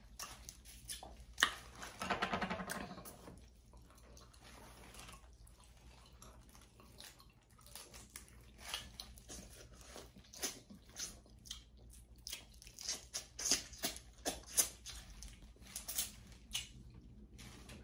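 Close-miked mouth sounds of eating seafood boil: wet chewing with scattered lip smacks and sucking clicks, and a short voiced hum about two seconds in.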